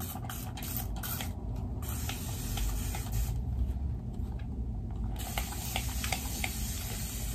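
Hand-held spray bottle misting water onto hair in quick repeated spritzes, wetting it down. It stops briefly about a second and a half in, and again for a couple of seconds in the middle.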